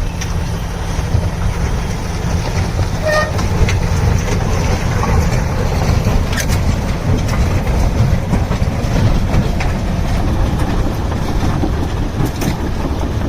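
Heavy machinery running with a steady low rumble and scattered clanks, and a brief short toot about three seconds in.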